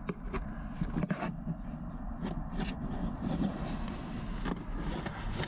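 Hands handling wiring and plastic trim inside a car's center console: faint rustling with a few light clicks, over a low steady background rumble.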